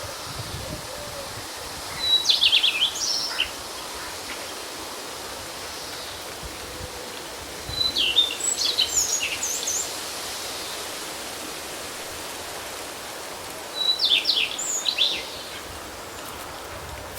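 A songbird sings three short phrases of quick high chirps, about six seconds apart, over a steady hiss of wind.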